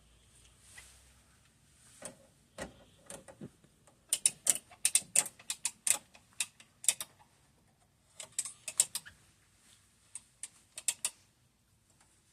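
Quick runs of sharp clicks and light taps, as of hand tools and plastic pipe fittings being worked, densest in the middle with short pauses between runs.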